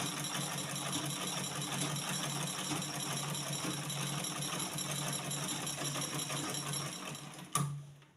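Black-head Butterfly manual treadle sewing machine stitching steadily, a fast even run of needle strokes. It stops near the end with a single sharp click.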